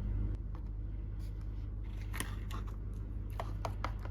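Faint scattered taps and scrapes of small toys being handled and set down, over a steady low electrical hum.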